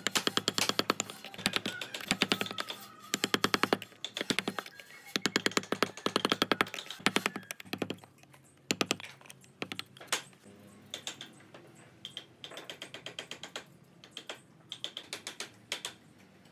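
Quick light taps of a mallet on a wood-carving chisel, coming in bursts of rapid strokes about a second long, fewer and more spaced out in the last few seconds.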